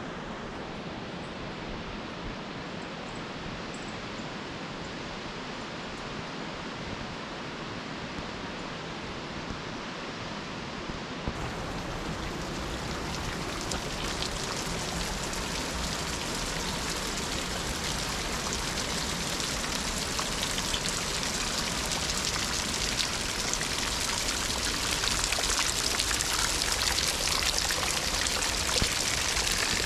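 Steady rush of running water, the hiss of a stream or falls. About eleven seconds in, the sound changes suddenly to a brighter, hissier rush that grows gradually louder toward the end.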